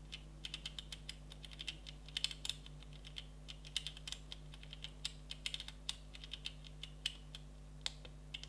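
Panasonic GH5's rear control dial clicking through menu items, in quick runs of small sharp clicks with short pauses between runs.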